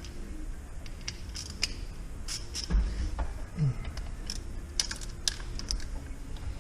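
Irregular small clicks and taps of a hand wrench working on the glow plug relay's terminal nuts on a 7.3 Powerstroke diesel.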